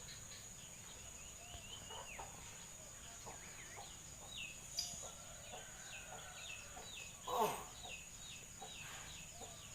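Faint bird calls: many short descending chirps, with one louder call about seven seconds in that drops steeply in pitch. A steady high-pitched whine runs underneath.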